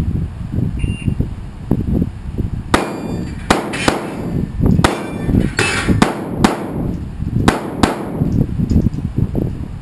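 Shotgun firing a quick string of about eight shots, starting about three seconds in and lasting some five seconds, each crack followed by a short ring. Wind rumbles on the microphone throughout.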